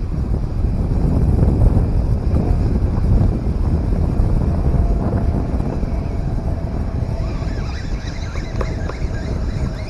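Wind buffeting the microphone: a loud, uneven low rumble that rises and falls.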